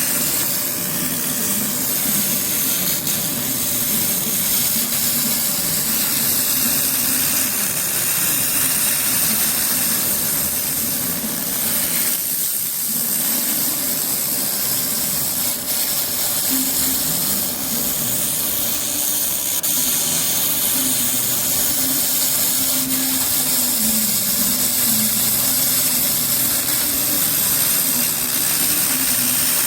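200 W pulsed laser cleaning machine ablating hardened oil stains off the metal of a cylindrical grinder: a steady, dense hiss with a low machine hum that wavers in pitch. The sound drops out briefly about twelve seconds in.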